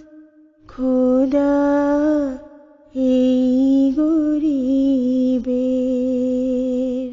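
A woman singing slow, long-held notes of a Bengali hamd-naat devotional melody, in two phrases with a short break between them; the last note is held and then stops.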